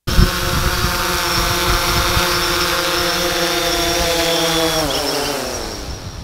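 DJI Phantom 3 4K quadcopter's propellers whining steadily as it descends and touches down close by. About five seconds in, the motors spin down with a falling pitch and fade.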